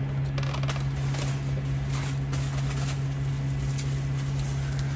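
A sheet of bubble wrap rustling and crinkling as it is handled, with faint crackles mostly in the first couple of seconds, over a steady low hum.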